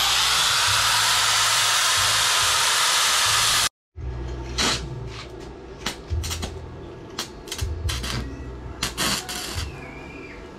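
Power tool, most likely an angle grinder, cutting metal with a loud, steady hiss for nearly four seconds to trim the lock part. It stops abruptly and is followed by scattered clicks and knocks of metal pieces being handled.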